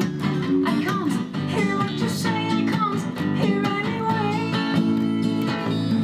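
Acoustic guitar strummed with a bass guitar in an instrumental passage of a song, a melody line bending up and down in pitch over them.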